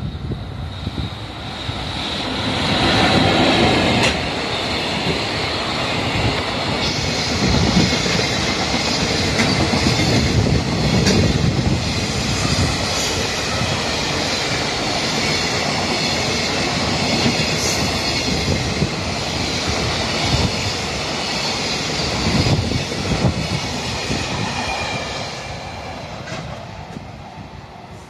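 A long container freight train hauled by an EF65 electric locomotive passes close by. The wheel and rail noise swells sharply about three seconds in as the locomotive goes past, stays steady as the container wagons roll by, and fades near the end as the last wagon clears.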